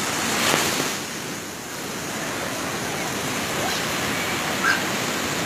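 Small waves breaking and washing up on a sandy shore: a steady surf hiss that swells about half a second in, then eases.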